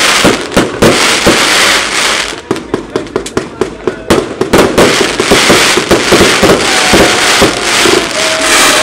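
Rubro 4 Seasons 100-shot firework cake firing: sharp launch and burst bangs in quick succession, several a second, over a dense crackling hiss from the bursting stars. A faint whistle glides down in pitch near the end.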